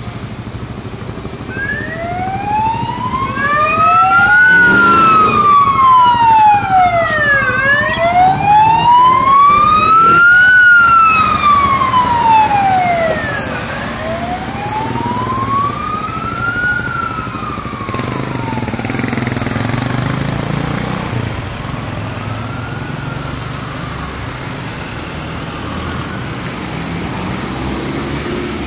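Emergency sirens of a passing police car and ambulance, on a slow wail that sweeps up and down about every six seconds. Two wails overlap at first, then a single wail goes on, loudest in the first half and growing fainter as the vehicles move away, over the low sound of engines and traffic.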